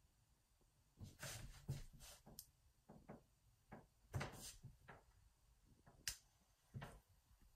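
Near silence: room tone with faint, scattered clicks and rustles.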